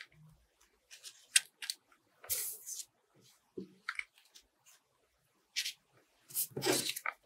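Paper rustling in short, scattered bursts with light clicks as paper leaves are handled and pressed down for hot-gluing, with a louder rustle and a soft knock near the end.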